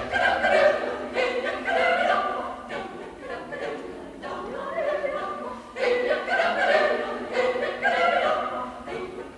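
Choir singing a cappella in short phrases broken by brief pauses.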